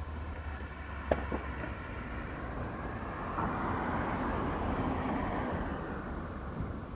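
A vehicle passing: its noise swells over a couple of seconds and fades again, over a steady low rumble, with one sharp click about a second in.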